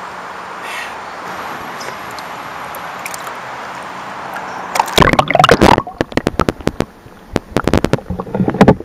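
Steady hiss of outdoor ambience, then loud water splashing about five seconds in as the camera plunges below the river's surface, followed by muffled underwater gurgling with many sharp clicks and knocks.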